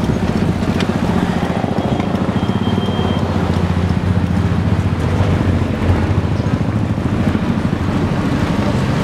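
Matatu minibus driving, heard from inside the cabin: a steady low engine rumble with road noise.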